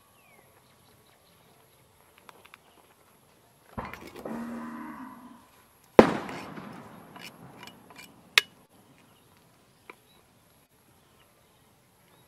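A cow lowing once for about a second and a half. About two seconds in, a sharp clatter at the aluminium cooking pot as chopped greens are pushed off a wooden board into the boiling soup with a metal ladle, followed by a few light metal clinks.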